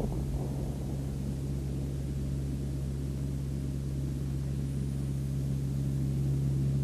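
Propeller aircraft engines droning steadily over a hiss of noise, growing a little louder toward the end.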